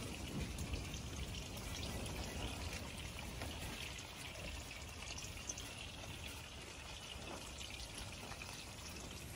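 Food sizzling in a frying pan on a stove: a steady hiss dotted with small crackling pops.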